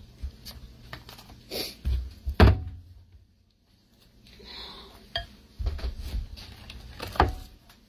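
Kitchen clatter: scattered knocks and clinks of containers and utensils being handled at the counter around a slow cooker, the loudest knock about two and a half seconds in, with a brief silent gap in the middle.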